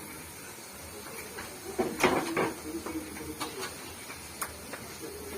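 Jilapi batter frying in hot oil: a steady sizzle with a brief cluster of clattering knocks about two seconds in, and faint voices in the background.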